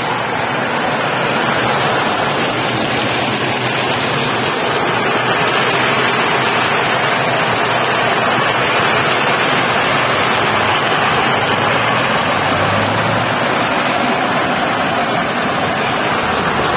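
Walnut hulling machine running, green walnuts tumbling in its drum as their husks are stripped off: a steady rushing, churning noise.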